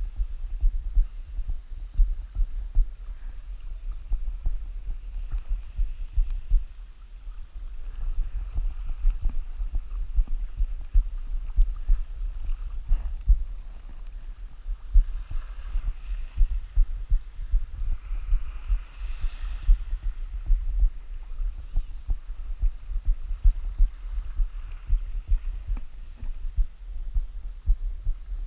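Wind buffeting the camera microphone: a steady low rumble full of irregular thumps, with a faint hiss swelling briefly around the middle.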